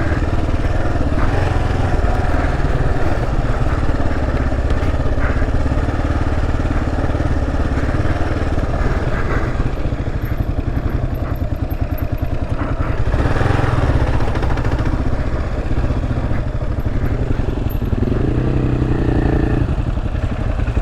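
Kawasaki KLR 650's single-cylinder four-stroke engine running steadily as the bike rides along a dirt trail, its pitch shifting a little with the throttle.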